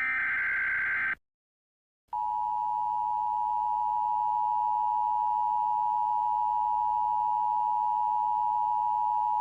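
Emergency Alert System broadcast tones. A short buzzing burst of digital header data ends about a second in, and after a second of silence the steady two-tone attention signal sounds. Together they announce a Civil Danger Warning.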